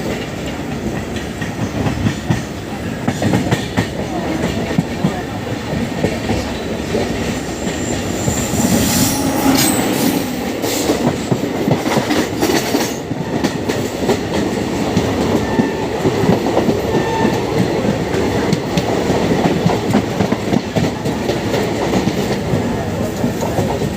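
Passenger train running at speed on rails, heard from aboard, its wheels clattering steadily over the track. A sharper burst of clatter and high hiss comes about nine to thirteen seconds in.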